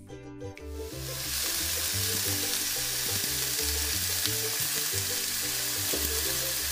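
Pork shanks sizzling steadily as they brown in a dry frying pan, frying in their own rendering fat with no oil added. The sizzle comes in about a second in. Background music with a low bass line plays underneath.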